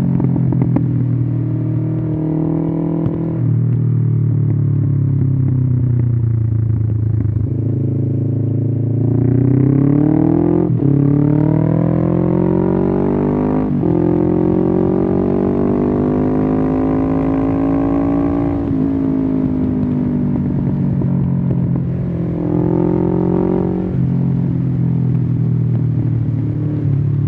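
A 1993 Suzuki GS500E's parallel-twin engine running loud through a Takkoni slip-on exhaust with the dB-killer removed. It holds a steady pull, then from about nine seconds in it revs up with two quick upshifts, each a sudden drop in pitch, then climbs more slowly and eases off to a steady cruise.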